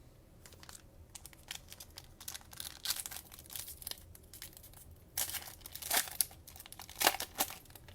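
Cellophane wrapper of a trading-card cello pack crinkling and tearing as it is opened by hand, with louder crackles about five, six and seven seconds in.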